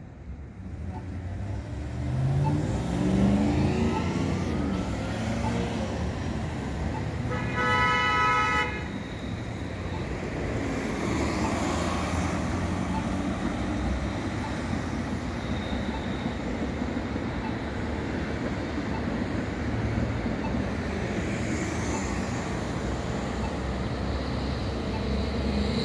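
Traffic at a city intersection: vehicles pulling away with a rising engine note, then a single horn toot of about a second roughly a third of the way in, then steady road noise as cars, a city bus and a light-rail car move through.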